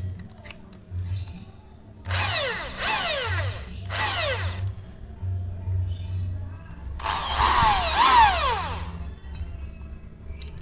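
Bosch GSB 550 550-watt corded impact drill, with a 12 mm bit in the chuck, run free in several short trigger blips. Each time the motor whines up and then winds down in pitch when the trigger is released.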